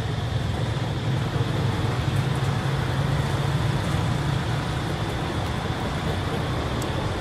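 Steady low rumble of road traffic, even in level throughout, with no distinct event standing out.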